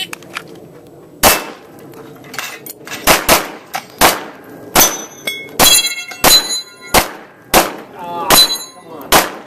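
A string of about eleven pistol shots fired at an irregular pace, roughly one every half second to second with a quick pair about three seconds in, several of them followed by the ringing clang of steel targets being hit.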